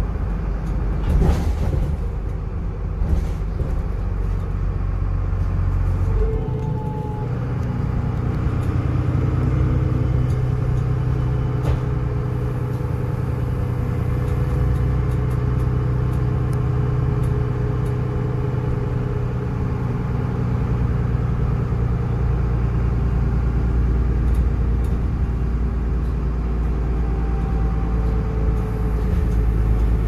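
Dennis Trident double-decker bus driving, heard from the upper deck: a steady diesel engine rumble with a turbo whistle over it. A few sharp knocks or rattles come in the first few seconds, and the engine note shifts about six seconds in.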